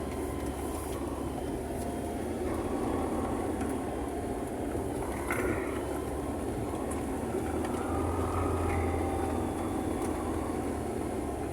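Car engine and road noise heard inside the cabin while driving: a steady low drone.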